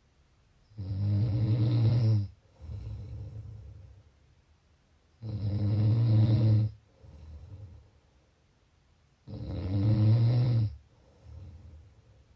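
A person snoring in a slow, steady rhythm: three loud snores about four seconds apart, each followed by a shorter, quieter breath.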